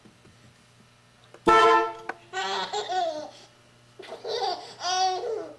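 A horn gives one short honk about a second and a half in, and a baby answers with two bouts of laughter.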